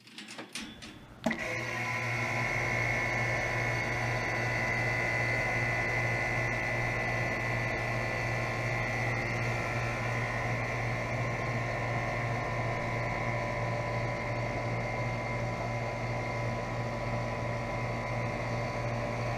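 A 2007 Guardian 4-ton central air conditioner's outdoor condensing unit starting up: a few clicks, then about a second in its Bristol reciprocating compressor and AO Smith condenser fan motor kick on together. The unit then runs with a steady hum and whine, and no clear fault noise.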